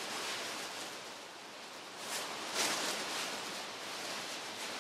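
Dry plastic garbage bag and dried cannabis leaves rustling and crinkling as handfuls are pulled out and packed into a stockpot, a little louder about two and a half seconds in.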